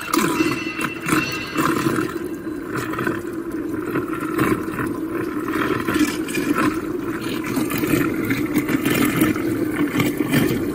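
RX-10L lab vacuum homogenizer mixer running with water in its stainless steel main vessel. It gives a steady motor hum under a rough rush of churning, splashing water.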